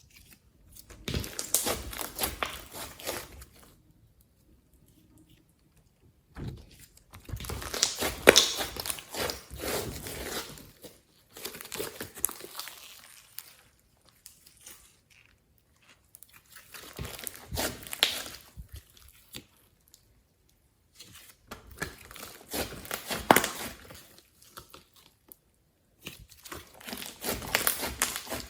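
Glossy slime being squished, pressed and stretched by hand, giving sticky crackling and popping in bursts of a few seconds with short silent pauses between them, about six times.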